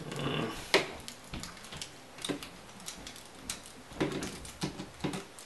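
Plastic clicks and snaps of a Transformers action figure being twisted and folded by hand, its joints and panels ratcheting into place in an irregular string of short sharp clicks, the sharpest about three-quarters of a second in.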